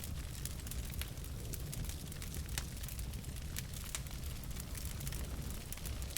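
Logs burning in a fireplace, crackling and popping in sharp irregular snaps over a steady low rumble of the flames.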